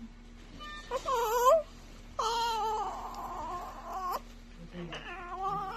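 Newborn baby crying in three wails: a short, loud one about a second in, a longer one of about two seconds, and another starting near the end.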